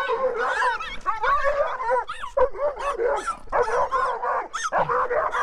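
A young red Doberman and a small dog barking and yipping at each other in a rapid, near-continuous run of short, high-pitched calls.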